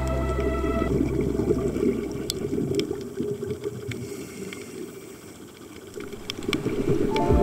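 Music fades out in the first second or two, leaving a muffled churning, bubbling rush of water with scattered faint clicks. The music comes back in near the end.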